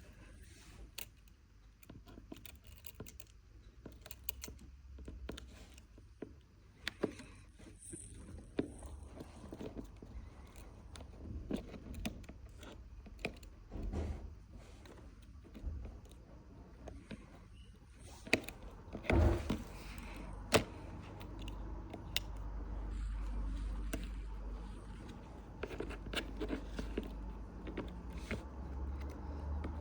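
Scattered small clicks, taps and light scrapes of tools and small parts handled on a workbench while display flex cables are connected inside an iPhone 6S during a screen replacement, with a few louder clicks about two thirds of the way through.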